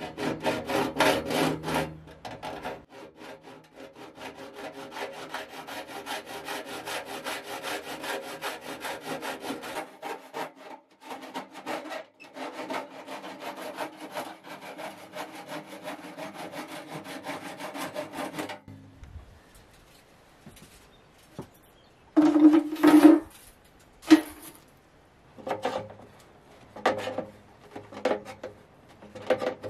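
Hacksaw cutting a metal pipe with fast, even strokes that stop a little over halfway through. After a short pause come separate short metallic scrapes and creaks, some with a ringing pitch, as pliers prise the pipe open along its fold.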